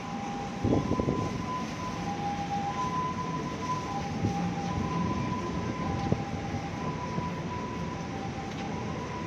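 A KRL commuter electric train running, with a steady low rumble and a heavy thump about a second in, then a few lighter knocks. Throughout, a two-tone warning signal alternates high and low, about half a second per tone.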